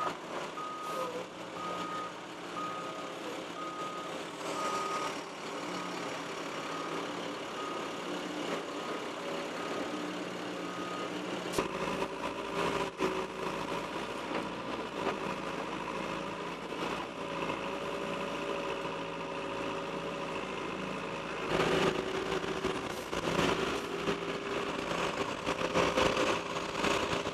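A vehicle's reversing alarm beeps steadily for the first eleven seconds or so. Then a John Deere 595D wheeled excavator's diesel engine runs as it works, louder in the last several seconds as it drops a load of branches and roots into a dump truck.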